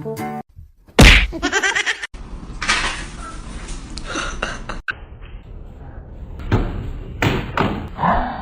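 A sudden loud thump about a second in, followed by more knocks and thuds later on.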